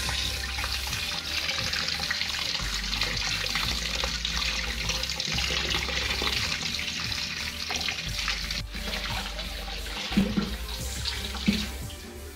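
Tap water running steadily into a stainless steel sink, splashing over a bowl of bilimbi fruits as hands rub and rinse them. Near the end the flow fades and there are two sharp knocks.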